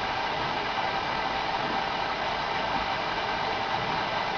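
Steady background hiss with a faint hum, with no distinct taps, knocks or cracks.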